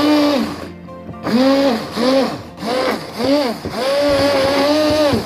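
Countertop blender chopping melon, banana and apple chunks, pulsed in several short bursts. The motor whine rises and falls with each burst, then runs steadily for about a second and a half near the end before stopping.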